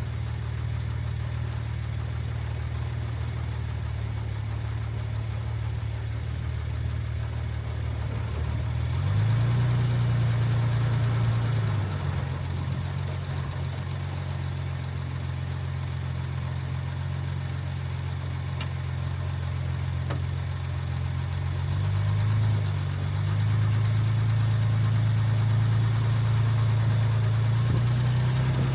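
Jaguar Mk II's XK straight-six engine running as the car is driven, steady at first, picking up in pitch and loudness about nine seconds in and easing back a few seconds later, then rising again near the end and holding there.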